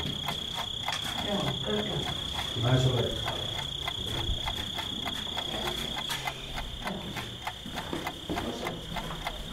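A steady high-pitched whine runs throughout, over scattered clicks and knocks. Faint muffled voices come in the first few seconds.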